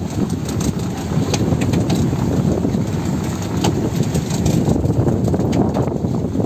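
A fishing boat's engine running steadily, driving a rope-hauling drum as the net line is wound in. Sharp clicks and knocks come at irregular moments over the engine.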